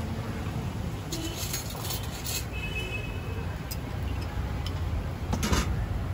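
Steady low rumble of street traffic, with a few light clinks of kitchen utensils and a sharper knock about five and a half seconds in.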